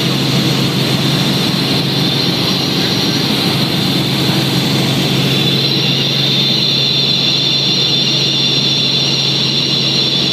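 Helicopter cabin noise in flight: a steady, loud drone from the engine and rotor with a high whine over it. The whine grows stronger about halfway through.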